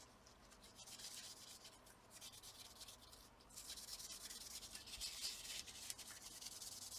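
Faint scrubbing on a laptop's CPU cooler as it is cleaned: a soft, hissy rubbing that grows stronger about halfway through.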